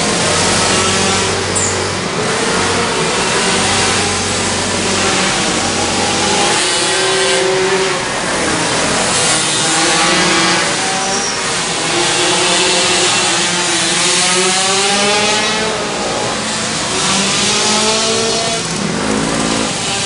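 Several two-stroke pocket bike (minimoto) engines racing at once, their pitch rising and falling as they accelerate and ease off. A low steady hum sits under them for the first six seconds or so.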